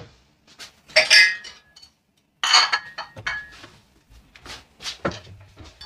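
A cup and dishes clinking as a cup is set out. There are two clear clinks with a short ringing tone, about a second in and about two and a half seconds in, followed by a few lighter taps.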